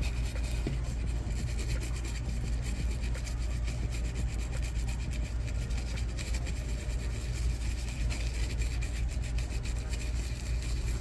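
Continuous close-up rubbing and scratching from hand work on a GT 1030 graphics card as its thermal pads are fitted, over a steady low hum.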